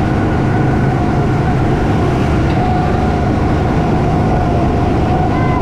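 A vehicle running steadily: a constant low hum with a steady high whine over it.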